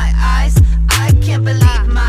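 Background hip hop/R&B music: a deep held bass, repeated booming kick drums that fall in pitch, and a vocal line.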